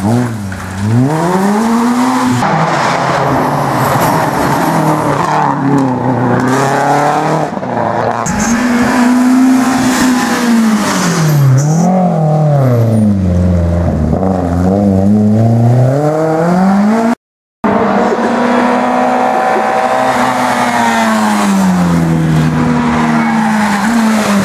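Small rally hatchbacks, among them a Citroën Saxo and a first-generation Volkswagen Golf, taking a bend one after another at full pace, engines revving up through the gears and dropping as they lift off and brake, again and again. The sound cuts out for a moment about two-thirds of the way through.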